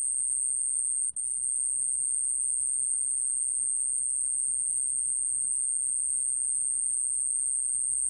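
A 좀방울벌레 (small bell cricket) singing at 29 °C: one continuous, even, very high-pitched trill with a brief break about a second in.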